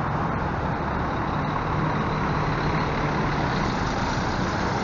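Intercity coach driving slowly past close by, its diesel engine giving a steady low drone.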